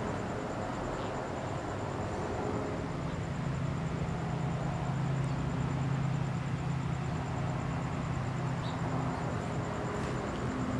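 Ducati 749 superbike's 90-degree L-twin engine idling steadily.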